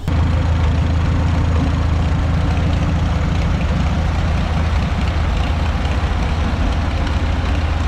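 A tractor engine idling steadily with a low, even rumble, which starts abruptly at the outset.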